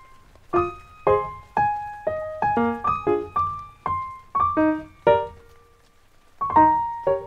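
Background piano music, a slow melody of single notes and chords each struck and left to fade, with a pause of about a second before a louder chord near the end.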